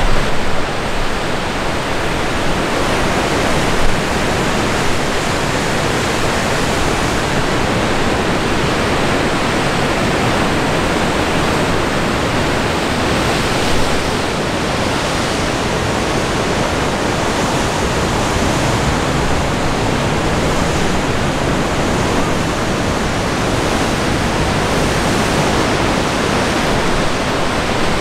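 Steady rushing noise of wind and ocean waves breaking on rocks, with no distinct single events.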